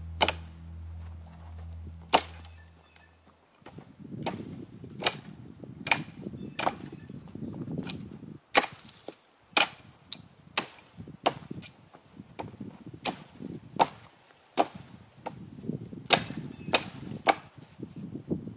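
Repeated sharp chopping blows on wood, about two a second, with handling rustle between strokes. Background music fades out in the first few seconds.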